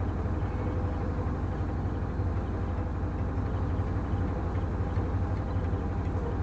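Steady low hum with a light hiss over it, unchanged throughout.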